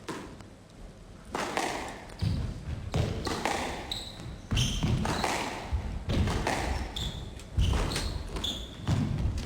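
Squash rally: a squash ball struck by rackets and smacking off the court walls, with sharp hits about every half second to second after a quieter first second. Short high shoe squeaks on the court floor come between the hits.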